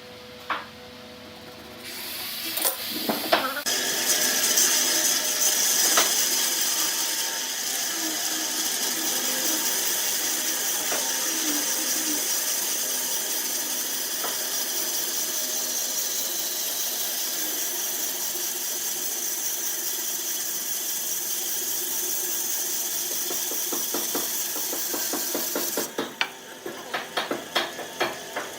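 A power tool runs steadily with a high, hissy whine. It starts about two seconds in with a few sharp knocks and stops near the end, followed by a quick series of clicks and knocks.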